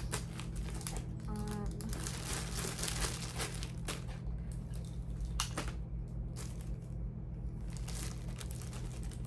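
Rustling and crinkling of plastic as charging cords are rummaged through and handled, with a couple of sharp clicks, over a steady low hum.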